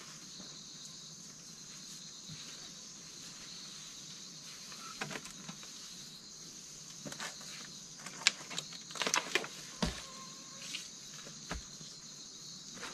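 A steady, high-pitched chorus of insects, with a handful of sharp snaps and rustles from the tree branch being pulled and hung from and from dry leaf litter, loudest about eight to nine and a half seconds in.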